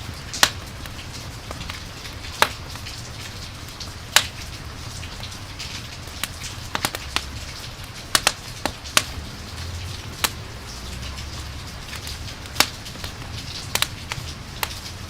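Rain and campfire ambience: a steady hiss of rain with a low rumble beneath, broken by irregular sharp crackles and pops of a burning wood fire.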